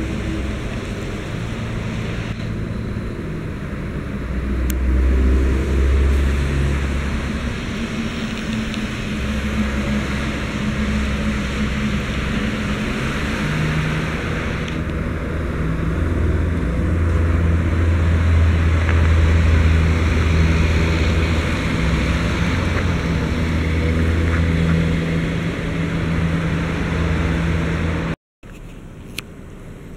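Motor vehicle engines running with steady road noise, the engine hum shifting in pitch every few seconds as traffic moves. The sound cuts out abruptly for a moment near the end.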